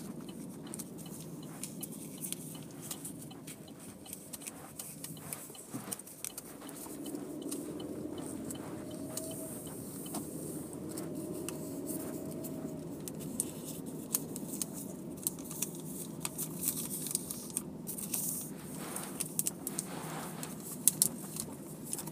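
Automatic car wash heard from inside the car: a steady low rumble of the machinery with many scattered clicks and spatters.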